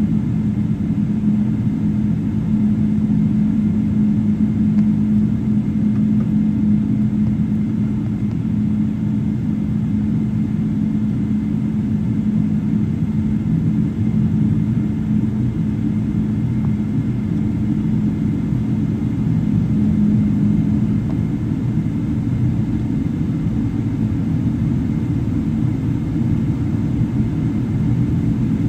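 Cabin noise of a Boeing 777-300ER taxiing on its GE90-115B turbofans at idle, heard from inside the cabin: a steady low drone with a constant hum.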